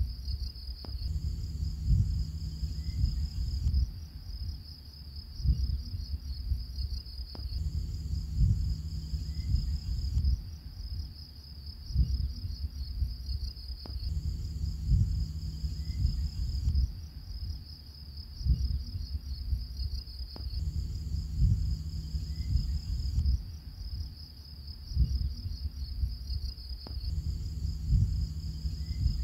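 Looped background track of crickets chirping: a steady high trill over a low rumble with soft thuds. The same few seconds repeat about every six and a half seconds.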